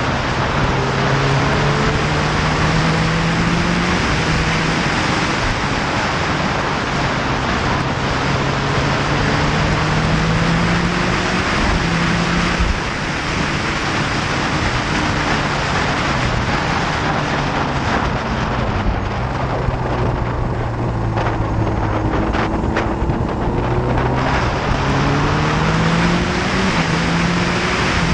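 Motorcycle engine heard from an onboard camera while riding, its note climbing and dropping again and again as the rider works the throttle and gears, under heavy wind rush over the microphone.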